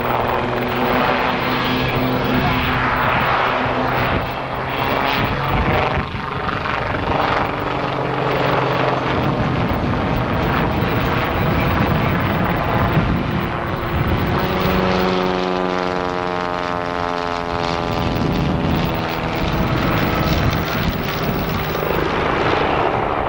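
Westland Lynx helicopter flying a display low overhead, a steady rotor and turbine drone. In the second half the pitch sweeps as an aircraft passes by.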